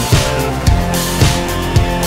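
Background music with drums and a steady beat, about two hits a second.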